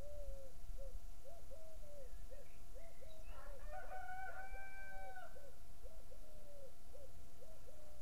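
A rooster crowing once in the distance, one long held call starting about three seconds in, while another bird keeps up a quick series of short, low, repeated notes.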